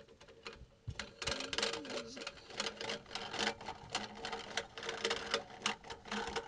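Plastic bottom half of a two-piece basket waste being screwed by hand up the long metal thread under a sink: rapid, irregular clicking and rasping of plastic on the thread as it is turned, starting about a second in.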